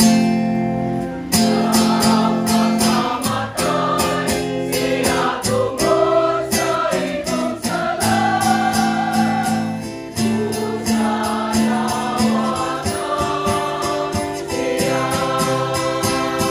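Mixed church choir singing a hymn in several-part harmony, accompanied by a strummed acoustic guitar. The music starts suddenly right at the beginning.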